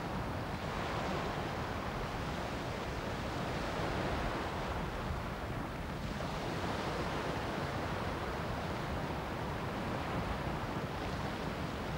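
Strong wind blowing over the microphone together with choppy waves and splashing water, a steady noise throughout.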